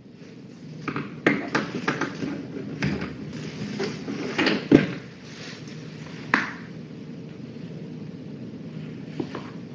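Irregular knocks and clatters, thickest in the first five seconds with the loudest near the middle, then a single knock and a faint click later, over a steady low hum.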